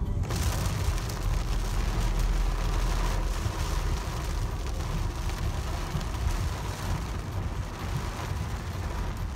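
Car driving on a wet road in the rain: a steady low rumble of engine and road noise under the hiss of rain and wet tyres, the hiss coming in suddenly at the start.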